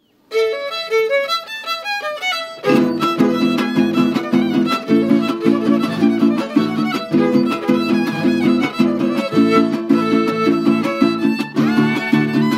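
Huasteco violin playing a huapango melody alone, then the trío's strummed jarana huasteca and huapanguera come in about two and a half seconds in with a steady, driving rhythm under it.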